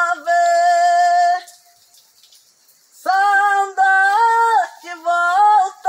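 A solo voice singing a Portuguese gospel song unaccompanied, holding long notes. The singing stops for about a second and a half in the middle, then resumes with several sustained phrases.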